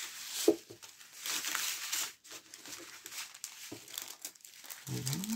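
Clear plastic packaging crinkling as it is handled, in irregular bursts, with a sharp tick about half a second in.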